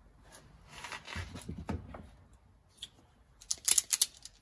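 Hands handling wires and small crimp connectors: rustling, then a quick run of sharp clicks near the end.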